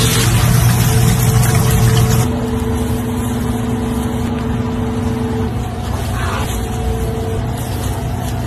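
Deep fryer oil sizzling around a battered onion over a steady low drone of kitchen machinery. About two seconds in the sizzle cuts off and the steady drone carries on alone.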